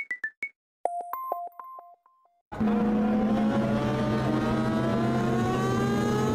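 A quick run of short electronic beeps and chime notes, like an on-screen button sound effect, over the first two seconds. After a brief silence, a car engine starts up and runs loud and steady, slowly rising in pitch as the car accelerates.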